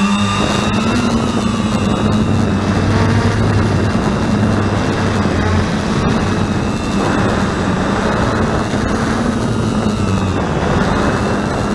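Eye One Xtreme quadcopter's electric motors and propellers buzzing steadily in flight, heard up close from the camera mounted on the craft. The pitch wavers only slightly as it flies.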